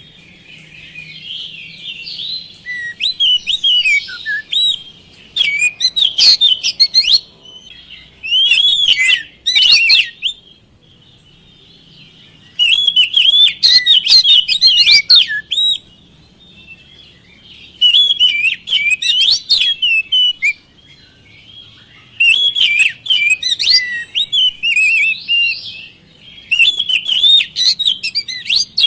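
Oriental magpie-robin (kacer) song: loud phrases of rapid, varied whistles and chirps, each lasting a second or two and repeating every few seconds, with softer twittering between them. It is played as a lure to get other magpie-robins to answer and sing.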